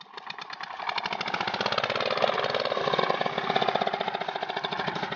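Lister-type diesel engine of an irrigation pump set catching and running with a rapid, even chugging. It builds up speed over the first second after the start, then holds steady.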